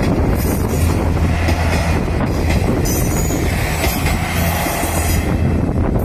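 A JR Kyushu diesel railcar passing loudly through a level crossing at close range, its engine humming and its wheels running on the rails.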